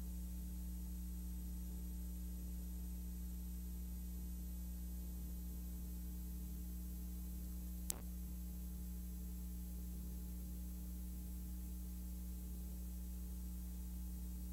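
Steady low electrical hum with a faint hiss: the background noise of a silent film transfer with no recorded sound. One sharp click about eight seconds in.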